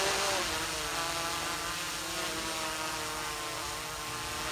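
Quadcopter drone hovering overhead, its propellers giving a steady buzzing whine of several tones whose pitch wavers slightly as the motors adjust. It is a little louder, with a brief rise and fall in pitch, right at the start.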